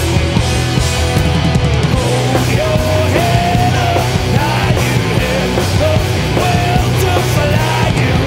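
Heavy metal band playing live, with distorted electric guitars, bass and pounding drums. From about two seconds in, a held melody line steps and bends in pitch over the riff.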